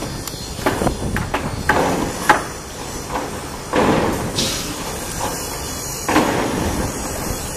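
Sumitomo SH480 excavator at work: a string of sharp clanks and knocks in the first couple of seconds, then two longer rough surges of noise over a steady low engine rumble.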